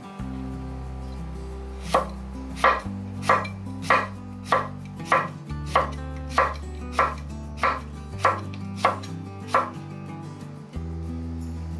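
Kitchen knife slicing a cucumber on a wooden cutting board: about thirteen even chops, a little under two a second, starting about two seconds in and stopping shortly before the end.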